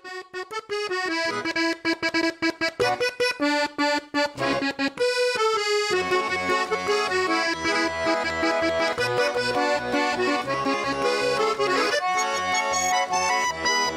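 Accordion music with held, melodic notes; a steady beat of bass notes joins about six seconds in.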